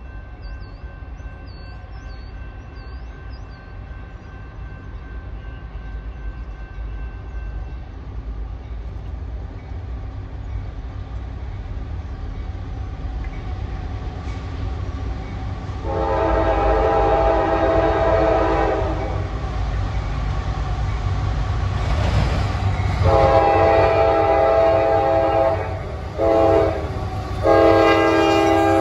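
CSX freight train's diesel locomotive approaching and sounding its air horn in the long, long, short, long grade-crossing signal, the blasts starting about halfway through. The engine rumble builds steadily as it nears. Faint bird chirps are heard in the first few seconds.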